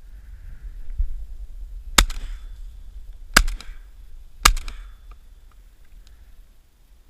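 Three shotgun shots from a duck hunt: the first, then one about a second and a half later, then one a second after that, each with a short echo.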